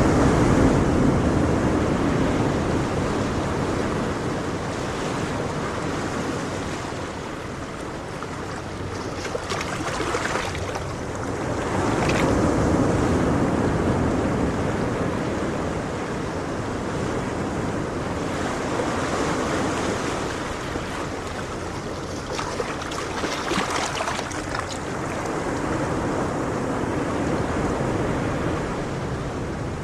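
Ocean surf: waves breaking and washing in, the hiss swelling and fading in slow, uneven surges several seconds apart.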